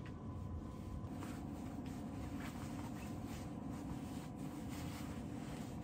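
Faint rustling and soft scratching on fabric, with a few light ticks, as a small dog moves about on a blanket, over a steady low hum.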